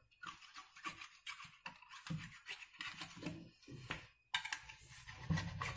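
A knife cutting and prying a hardened glue-gun mould away from a metal idol: faint, irregular small clicks and scrapes.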